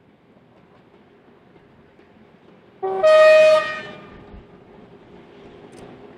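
A locomotive whistle gives one short blast of about a second, a brief lower note jumping to a higher, brighter one. A steady low hum follows.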